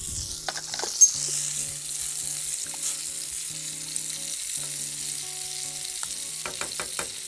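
Orange sauce reducing in a saucepan on a gas camping stove, hissing and bubbling steadily as it is stirred with a spoon, with a sharp click of spoon on pan about a second in. Soft background music plays underneath.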